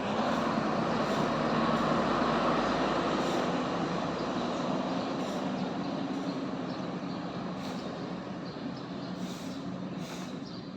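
Large bus's diesel engine running steadily as the bus moves off, its sound gradually fading.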